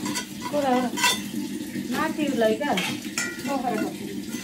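A thin plastic bag crinkling and rustling as rings of fried sel roti are packed into it by hand, with a few sharp crackles, one about a second in and another near the three-second mark.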